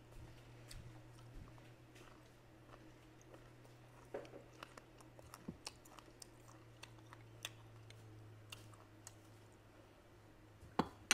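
Close-miked chewing of rice and braised fish, with many small wet mouth clicks and a sharp click near the end, over a faint steady low hum.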